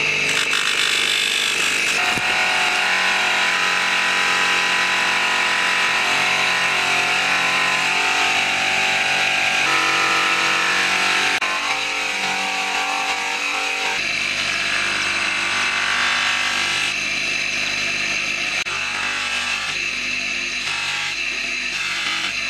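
Electric motor spinning a cloth buffing wheel, running steadily while a polishing compound bar and a steel katana blade are pressed against the wheel. Its tone changes several times along the way.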